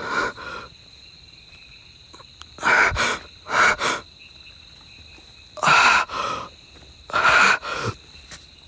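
A frightened person breathing hard, with about seven short, loud breaths in uneven bursts. A faint steady high tone runs underneath.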